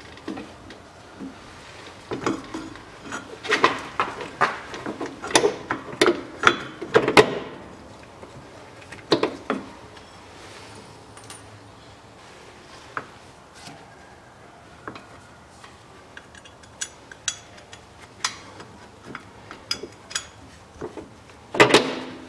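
Metal clanks and clicks of a car's propeller shaft and its flange bolts being handled and fitted by hand: a quick run of knocks in the first several seconds, scattered light ticks after, and another cluster of clanks near the end.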